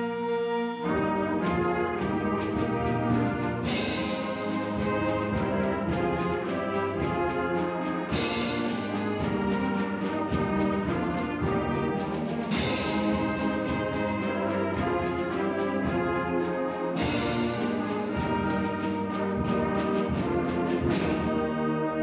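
High school symphonic band playing a concert-band arrangement of Christmas carols, with brass to the fore over a steady percussion beat. A cymbal crash comes about every four seconds, and the percussion stops shortly before the end.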